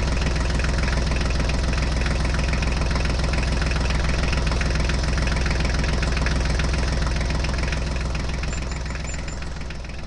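Engine idling steadily with a low, even rhythmic pulse, fading out over the last couple of seconds.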